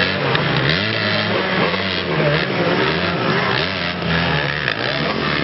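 Dirt bike engine revving up and down under the rider's throttle, its pitch rising and falling about once a second.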